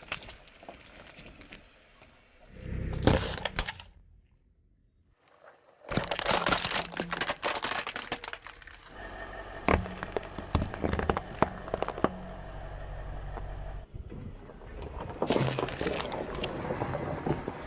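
Cracking and crunching as a car tyre rolls over brittle objects and crushes them, in several short bursts cut one after another, with a brief near-silent gap after the first.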